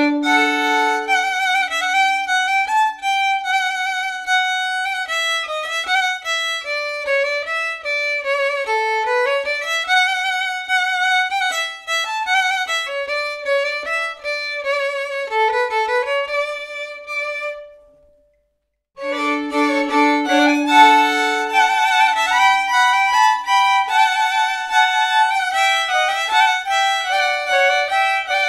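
Solo violin playing the second (harmony) voice of a Polish folk fiddle tune in D major at a slow tempo with light ornaments. Each phrase opens with a low note held beneath the melody. About two-thirds of the way through the playing stops for about a second, then the phrase starts again.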